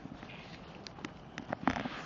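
Footsteps: a few light, scattered steps.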